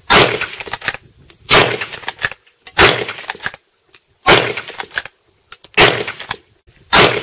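Six loud sharp impact sound effects, roughly one every second and a half, each trailing off in a short spatter of smaller clicks.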